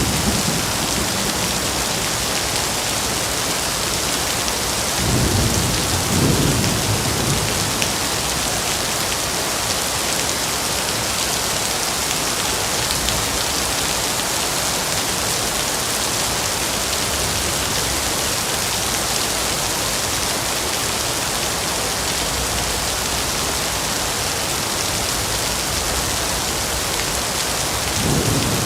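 Steady heavy rain falling in a forest, an even hiss. Low rumbles of thunder come about five seconds in, twice in quick succession, and again near the end.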